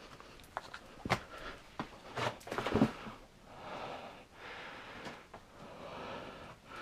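Footsteps crunching and knocking on loose rock, with sharp clicks through the first few seconds, then several long breaths of about a second each.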